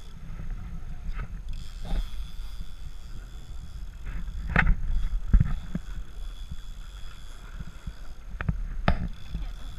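Steady low rumble of a boat under way at sea, with a few sharp knocks around the middle and once more near the end.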